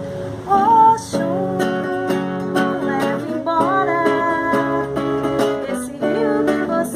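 Acoustic guitar playing a song's accompaniment, with a woman's voice singing short gliding phrases over it.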